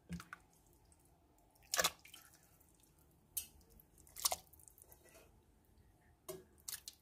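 Raw chicken pieces dropped one by one into a pressure cooker of broth, giving a string of small separate splashes and plops a second or two apart; the loudest comes a little under two seconds in.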